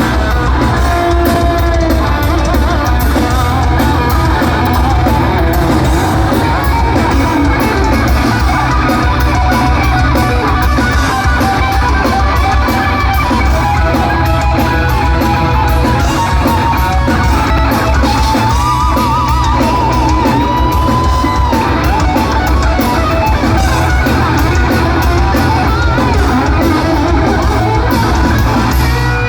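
Live heavy metal band playing loud: distorted electric guitar lead lines over bass and a busy drum kit. About two-thirds of the way through, the lead holds notes with a wide vibrato.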